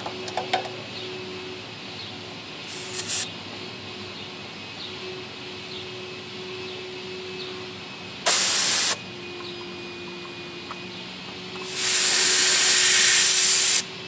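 R-22 refrigerant hissing out at the manifold gauge hoses on the condenser's service valves: a faint short hiss about three seconds in, a loud one of under a second about eight seconds in, then a longer loud hiss of about two seconds near the end.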